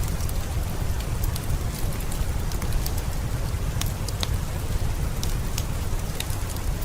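Steady heavy rain, an even wash with a deep low rumble, with scattered sharp pops and crackles of a wood fire in a fireplace.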